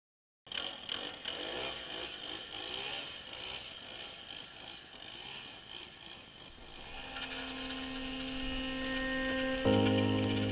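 A harsh, noisy, hiss-like sound cuts in suddenly, with a few sharp clicks at first. Music fades in underneath from about seven seconds and becomes the louder sound near the end.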